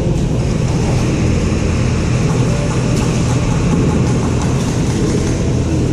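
A loud, steady machine-like hum and rumble with a hiss over it, unchanging throughout, with no shots standing out.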